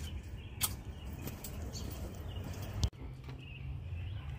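Outdoor background: a steady low rumble with a few faint bird calls, broken by a sharp click about two-thirds of a second in and another near three seconds.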